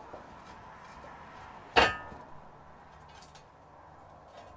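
A single loud clank of steel flat bar being knocked while the bars and boards are laid out on a wooden pallet, ringing briefly, about two seconds in; a few faint knocks follow.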